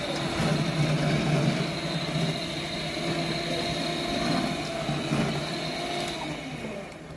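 A steady mechanical hum with a clear pitch, like a running motor. It drops in pitch and dies away near the end.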